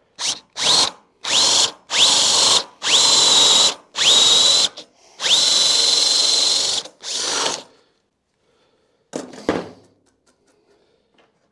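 A Festool cordless drill boring a hole for a 7/16-inch dowel into the end grain of a wooden baluster, run in about eight short trigger bursts. Each burst spins up to a steady high whine, and the last long burst runs about a second and a half. A few brief knocks follow about nine seconds in.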